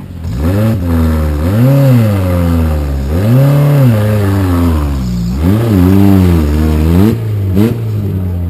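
Engine of a small off-road 4x4 revving up and down repeatedly, about six times, as it is worked up a steep dirt slope under load, ending with a short blip of the throttle.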